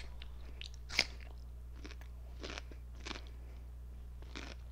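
Crisp cucumber being chewed close to the microphone: a few separate wet crunches, the sharpest about a second in.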